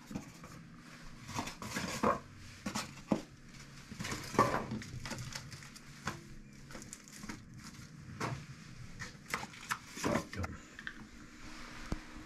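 Irregular light knocks, clicks and scrapes of hands handling aquascaping materials while setting up a small glass aquarium, over a faint steady low hum.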